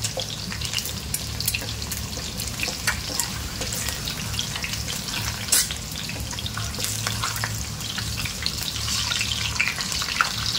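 Hot oil sizzling and crackling as potato wedges and boiled eggs shallow-fry in a wok, with a wooden spatula stirring at first. One sharper pop comes about halfway through, over a low steady hum.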